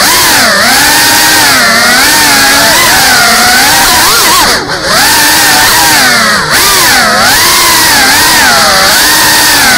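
Electric motors and propellers of a GEPRC CineLog35 ducted 3.5-inch FPV cinewhoop drone, heard from its onboard camera: a loud buzzing whine whose pitch constantly rises and falls as the throttle is worked in fast indoor flight. Near the middle, and again a little later, the throttle is briefly cut, so the sound dips and then jumps back up.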